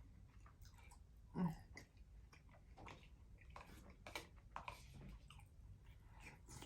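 Faint eating sounds: soft chewing and mouth clicks scattered throughout, with a short louder sound about a second and a half in.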